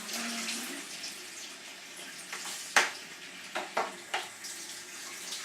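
A voice humming one low steady note that stops about half a second in, then water splashing in a bath, with one sharp, loud splash or knock near the middle and three smaller ones soon after.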